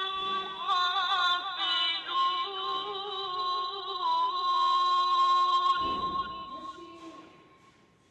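Background music with a high singing voice holding wavering notes, fading out over the last two seconds.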